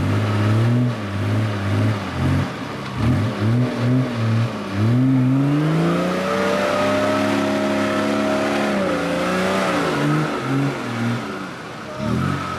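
Off-road 4x4's engine revving in short bursts, then rising and held at high revs for about four seconds before dropping back, as it reverses through deep mud.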